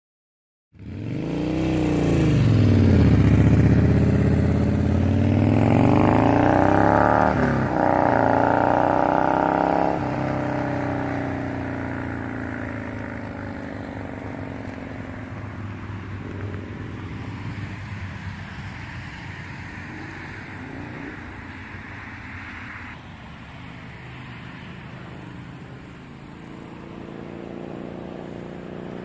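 Yamaha XV950 Bolt V-twin with a Miller aftermarket exhaust fitted with its dB killer, revving hard as it passes, its pitch dipping and rising and breaking at a gear change. The engine note then fades away down the road, and grows a little louder again near the end.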